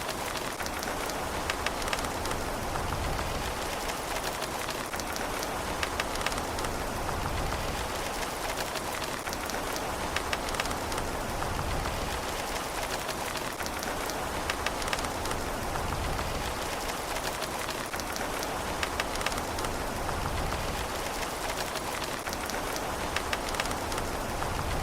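Steady rain falling, a continuous hiss with clusters of sharp drop taps now and then, and no thunder.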